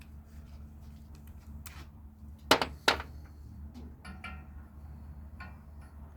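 Two sharp metal knocks about half a second apart, with small clinks around them, as tools work a brass valve held in a vise.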